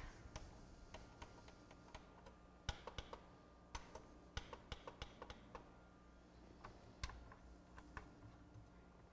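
Faint, irregular light clicks and taps of small plastic and metal parts being handled inside a CD changer's disc mechanism, in quick clusters with short gaps.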